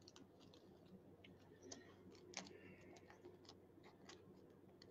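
Near silence with scattered faint clicks and light plastic crinkles as a trading card is handled and slid into a clear plastic sleeve; the two clearest clicks come about two seconds in.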